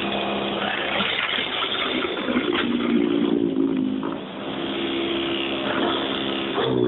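EGO 21-inch battery-powered snowblower running while it clears soft powder snow. Its motor and auger hum sits over a steady rush of snow being thrown out of the chute, and the hum shifts in pitch a few times as the load changes.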